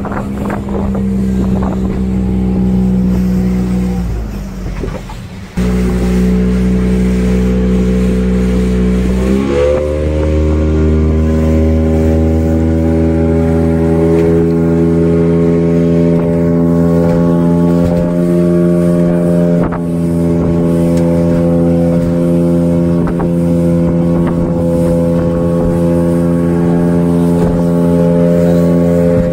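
Motorboat engine running steadily at speed. It briefly drops about four seconds in, then near ten seconds its pitch rises and holds higher as it speeds up.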